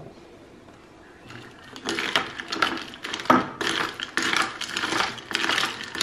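Ice cubes rattling and clinking in a double-walled glass as an iced latte is stirred with a glass straw, starting about a second and a half in and going on in quick, uneven strokes.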